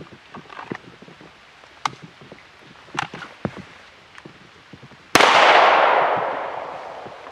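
One shot from an FNX-45 Tactical .45 ACP pistol about five seconds in, its report ringing out and fading over about two seconds. A few light clicks of handling come before it.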